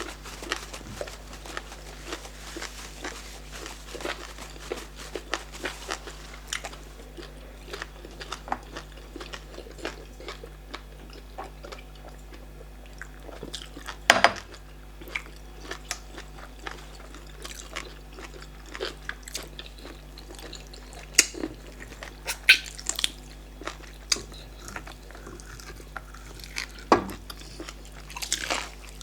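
Close-up eating sounds: chewing, smacking and slurping of starch fufu and bitter leaf black soup with meat, a dense run of small irregular mouth clicks. A few louder sharp clicks stand out about halfway through and again near the end.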